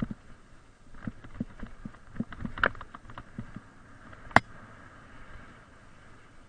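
Mountain bike rattling and knocking over a rough dirt trail on a downhill: irregular thumps and clatter, with a sharp click about four and a half seconds in.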